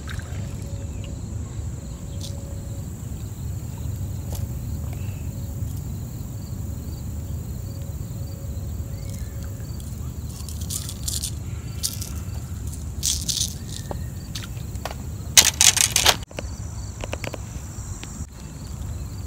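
Insects trilling steadily over a low outdoor rumble, with scattered rustling and scraping. About fifteen seconds in comes a loud, short rustling burst, the loudest sound, followed by knocks as the phone is picked up near the end.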